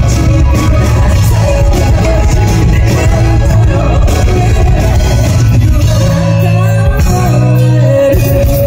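Live Japanese rock band with traditional instruments performing loudly, a female lead voice singing over heavy bass and drums. It is recorded right in front of the PA speakers, so the sound is loud and distorts.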